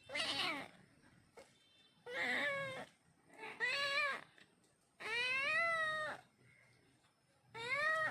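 A cat meowing: five separate meows, each rising then falling in pitch, the fourth one, about five seconds in, the longest.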